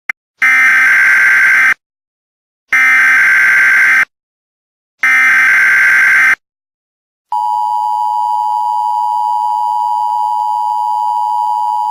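Emergency Alert System tones: three harsh, buzzy digital SAME header bursts of just over a second each, then the steady two-tone EAS attention signal starting about seven seconds in.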